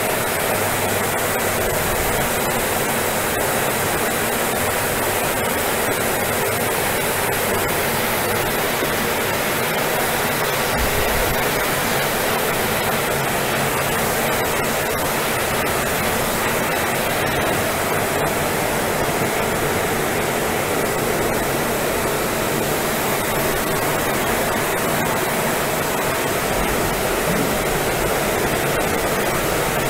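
Chocolate processing machinery running: a steady, unbroken mechanical noise with a faint high whine in it.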